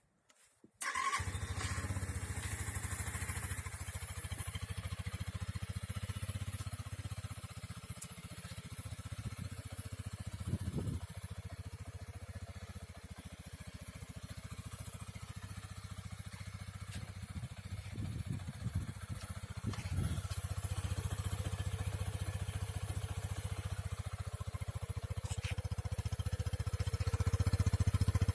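Keeway RKS Sport 125 motorcycle's single-cylinder engine starting about a second in, then idling steadily, a little louder near the end.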